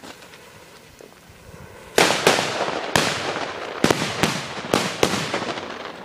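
Firecrackers exploding: about eight sharp bangs in quick, uneven succession, starting about two seconds in, after a short stretch of a fuse fizzing.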